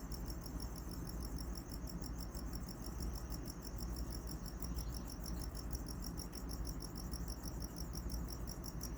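Crickets chirping: a fast, even train of high-pitched pulses, over a steady low hum.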